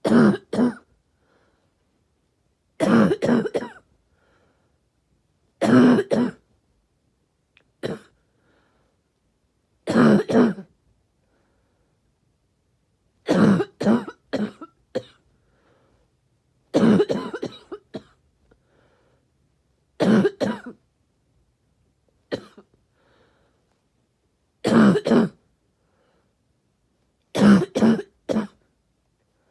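A person's barky cough, coming in short bouts of one to three coughs about every three seconds, with a couple of weaker single coughs in between.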